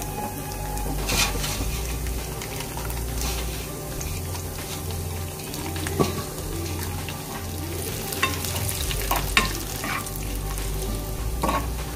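Chopped cashews and almonds frying in ghee, sizzling steadily while a metal spoon stirs them around the pan. The spoon knocks against the pan with a few sharp clicks.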